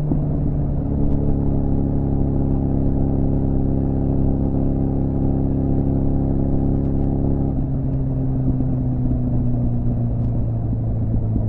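2006 Suzuki GSF 650 Bandit's inline-four engine running through a cut-down, unbaffled Beowulf exhaust. It holds a steady, slightly raised speed, then drops back to a lower steady pitch about seven and a half seconds in.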